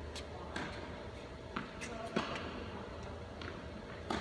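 Tennis balls being struck by rackets and bouncing on an indoor court: about half a dozen short sharp pops spread irregularly, the loudest about two seconds in, over a steady low hum.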